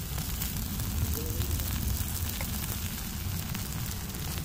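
Omelette sizzling in oil on a black iron tawa over an open wood fire, with scattered crackles and a steady low rumble underneath.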